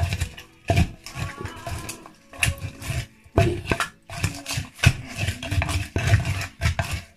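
A wooden pestle pounding in a wooden Thai mortar (krok), crushing chilli, garlic and tomato for som tum. It makes a steady run of dull, wet thuds, about two blows a second.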